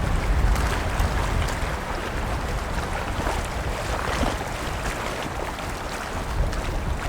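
Wind buffeting the microphone in gusts, with waves lapping and splashing.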